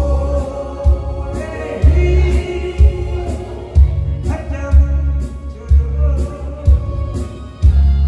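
A man singing into a microphone over a backing track, amplified through PA speakers, with a heavy bass beat about once a second.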